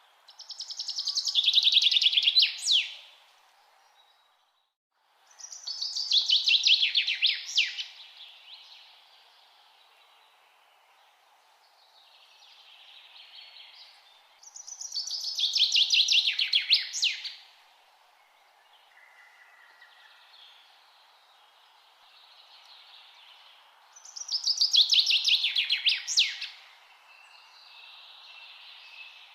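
A songbird sings the same short song four times. Each song lasts about two and a half seconds, a fast run of notes falling in pitch and ending in a sharp final note. Fainter bird calls come in the gaps, over a steady background hiss.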